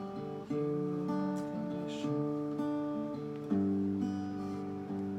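Acoustic guitar strumming sustained chords with no singing: a new chord is struck about half a second in and another about three and a half seconds in, each left to ring.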